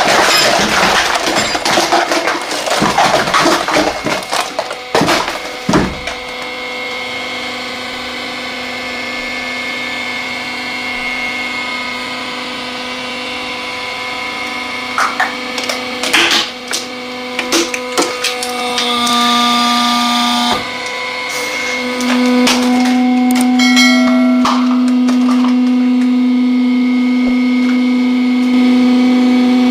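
Hydraulic press running with a steady hum. In the first few seconds there is dense crackling and splintering as an object is crushed, and a few sharp knocks follow later. The hum grows louder about two-thirds of the way through.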